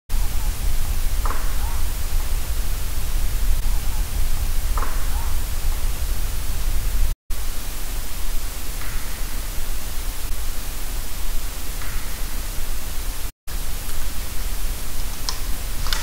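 Amplified overnight digital-recorder audio of a forest: a steady hiss with low rumble, and a few faint short sounds every few seconds. The sound cuts out briefly twice.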